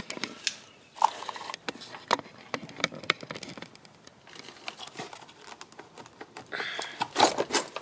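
Irregular clicks, taps and rustles of hands handling the plastic parts and wiring inside an opened electric scooter deck, with a longer scraping rustle near the end.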